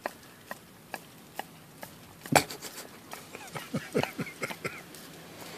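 A collie licking an ice cream cone, working down into the cone: short wet licks about twice a second, a louder smack a little past two seconds in, then a quicker run of slurping licks.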